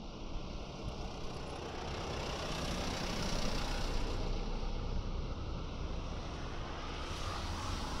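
A motor vehicle going by: a rush of engine and tyre noise that builds over the first few seconds and then holds fairly steady.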